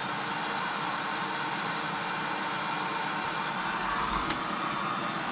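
Eufy RoboVac G10 Hybrid robot vacuum running, a steady whir of its suction fan and brushes, with a brief low thump and click about four seconds in.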